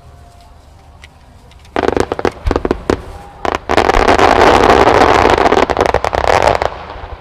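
Starmine fireworks: after a quieter second or two, a rapid run of shell bursts and sharp pops starts suddenly. It thickens into a loud, dense crackle for about three seconds, then thins out.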